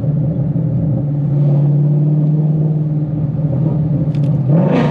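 Ford Mustang's 5.0-litre V8 running steadily under light throttle as the car drives along, heard from inside the cabin. Near the end the revs rise briefly.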